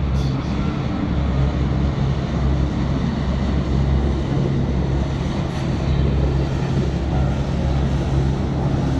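Boat engine running with a steady low drone, over the wash of water.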